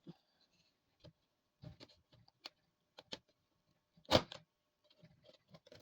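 Plastic snap clips of a laptop's bottom cover clicking loose as a plastic card pries around the seam, a string of light clicks and taps with one sharp, loud snap about four seconds in.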